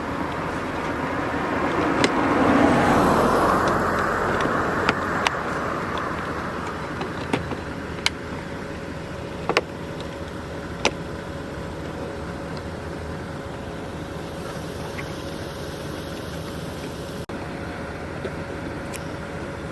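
Road traffic noise: a passing car swells over a few seconds and fades, over a steady faint hum, with scattered sharp clicks.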